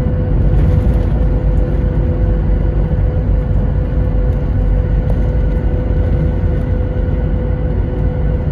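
Steady cabin noise inside a Boeing 737 airliner with its jet engines under power: a deep, even rumble of engines and airflow, with a steady hum held at one pitch.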